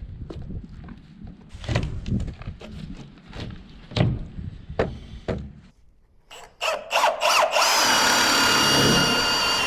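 Scattered knocks and clatter of tools being handled, then a quick run of clicks, and a power drill starting up about three-quarters of the way in and running steadily with a high whine.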